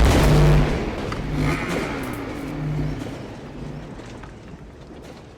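A vehicle engine revving, with a falling pitch right at the start, then dying away to a faint fade.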